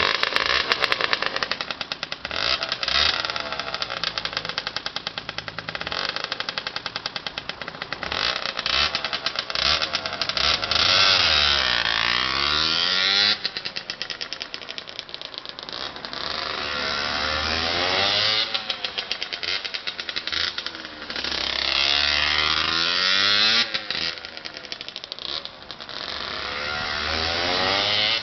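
Customised Honda CRM50's two-stroke single-cylinder engine, with a bore-up cylinder, big carburettor, expansion chamber and aftermarket silencer, running and being revved up and let fall back several times, the revs dropping off sharply after some of the rises.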